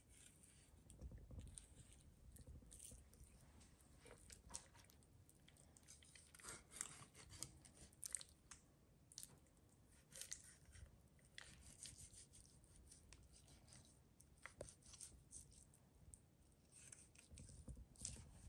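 Faint, irregular cutting sounds of a chef's knife slicing through a raw whole chicken, with small clicks and knocks as the blade meets the wooden cutting board.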